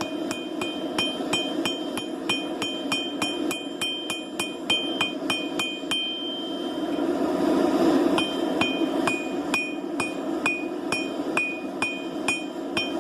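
Blacksmith's hammer striking hot metal on an anvil, about three ringing blows a second. The blows pause for about two seconds in the middle while a rushing noise swells, then start again, over a steady low rushing background.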